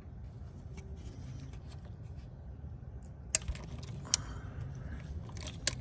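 Metal hand tools and bolts clinking and scraping against the engine parts: light rattling at first, then three sharp metallic clicks past the middle and near the end, with a brief scrape between them.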